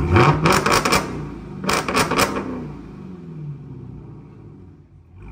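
Hellcat-swapped Chrysler 300's supercharged Hemi V8 revved hard twice through an exhaust with the resonators cut out, with sharp cracks at the top of each rev, then dropping back toward idle.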